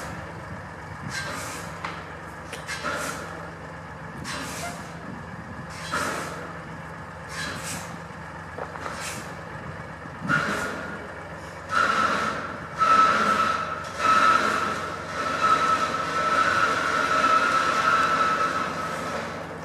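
Overloaded log truck's engine running with short hissing bursts every second or two. From about twelve seconds in, a steady high whine joins the sound and it gets louder.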